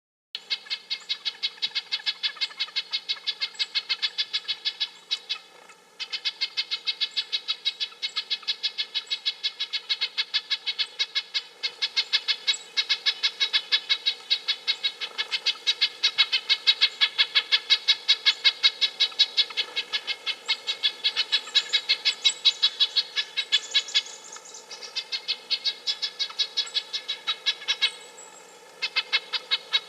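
Red-breasted nuthatch calling: a long, rapid series of short repeated notes, about four or five a second, broken by a few brief pauses.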